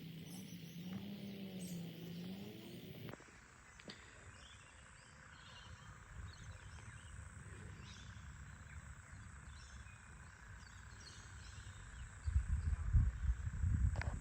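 Quiet rainforest ambience: scattered short bird calls over a steady faint high hum. It opens with a low, wavering pitched call lasting about three seconds, and a low rumbling noise comes in near the end.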